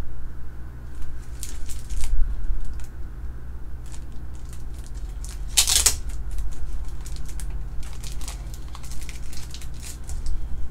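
Hard plastic graded-card slab handled and turned over in the hands: scattered light clicks and rubbing, with one louder scrape a little before six seconds in, over a steady low hum.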